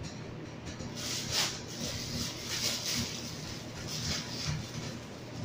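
Clear plastic packaging bag crinkling and rustling in several short bursts as it is handled and opened, over a steady low background hum.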